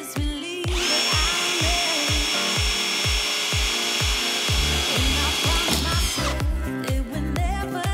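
Ryobi cordless drill running steadily with a high whine for about five seconds, starting just under a second in, as its bit works through a metal bracket on a plastic battery box. Background music with a steady drum beat plays throughout.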